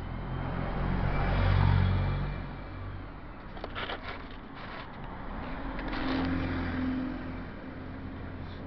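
Road traffic passing close by: one vehicle swells up and fades in the first couple of seconds, and a second passes about six seconds in with a low engine hum. A few short clicks are heard in between.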